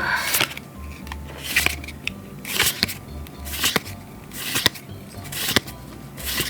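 Pokémon trading cards being slid off the front of a freshly opened booster pack one at a time, each card a short papery swish with a flick, about one a second.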